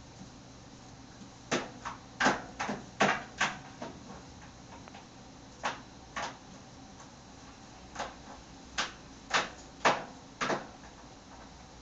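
Irregular sharp knocks and taps, about fifteen in two clusters: a small toy figure being banged against furniture.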